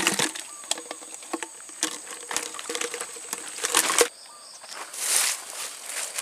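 Plastic-mesh fish trap being handled at the water's edge: rattling, clicks and water pattering off the trap. It cuts off suddenly about four seconds in, followed by quieter rustling with a short hiss.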